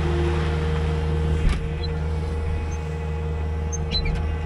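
Skid steer loader's engine running steadily, heard from its cab, while its bucket dumps corn silage into a vertical TMR mixer; one sharp click about a second and a half in and a few light ticks near the end.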